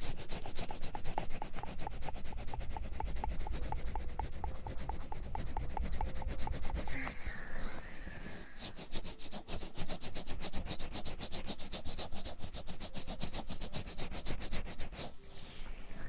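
Close-up rubbing on a microphone's ear, as in an ASMR ear massage or ear cleaning: a fast, even run of short strokes, several a second, pausing briefly about halfway and stopping shortly before the end.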